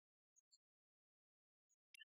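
Near silence, broken by a few faint, very short high-pitched blips.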